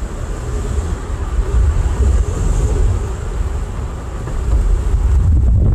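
Moving car heard from inside the cabin: wind buffeting the microphone, a heavy low rumble that swells and eases, over the road noise of new Vercelli Strada 1 all-season tyres, which are quiet.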